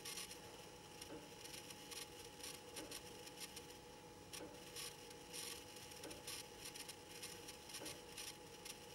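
Near-quiet room with a person's soft breaths, short faint hisses every second or so, over a faint steady whine.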